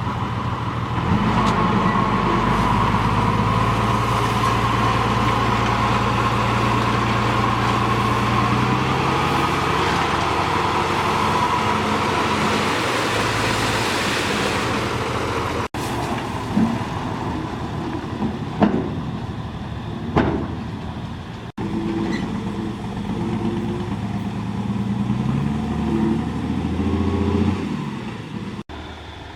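Heavy diesel engine of earthmoving machinery running under working load, its speed rising about a second in and easing off later. Near the middle comes a cluster of brief, sharp, loud sounds, and the engine sound breaks off abruptly a few times.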